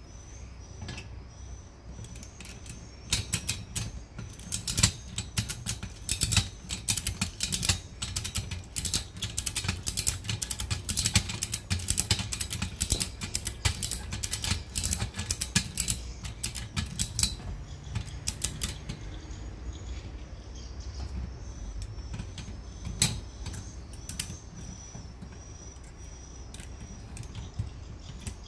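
Rapid small metallic clicks and rattles from a 1-inch ratchet tie-down buckle as polyester webbing is threaded and pulled through it by hand. The clicks come thick and fast from about three seconds in, then thin out to occasional clicks in the second half.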